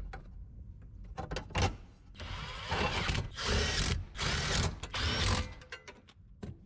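Cordless drill/driver running in about four short bursts, its motor whine shifting in pitch, as it drives in the fasteners of a small metal cover under a truck's steering column. Light clicks of the metal cover being handled come just before.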